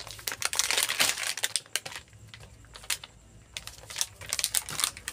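Plastic grocery packet crinkling as it is handled and turned in the hands, with dense rustling through the first two seconds and again near the end.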